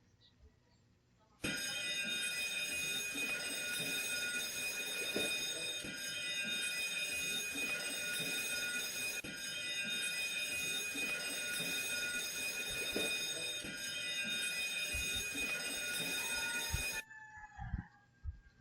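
Ship's alarm sounding one steady, unbroken tone for about fifteen seconds, starting abruptly a second or so in and cutting off suddenly near the end.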